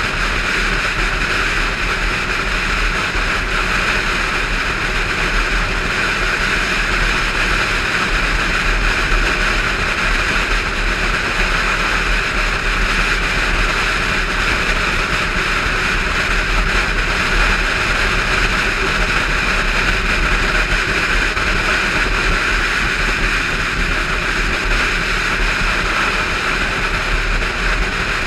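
Steady wind rush on the camera of a motorcycle cruising at road speed, with the engine's low drone underneath, unbroken throughout.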